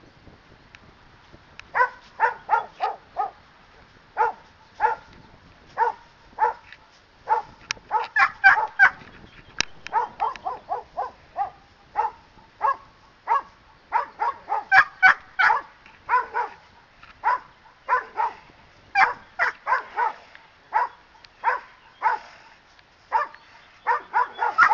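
Standard poodle barking repeatedly at a man agitating it during leash-bound protection training. The barks start about two seconds in and keep coming, one to three at a time in quick succession.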